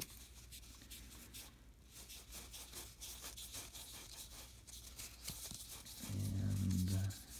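Baseball cards being slid and flicked one over another in the hands: faint, quick rustles and clicks of card stock. About six seconds in comes a brief steady low hum lasting about a second.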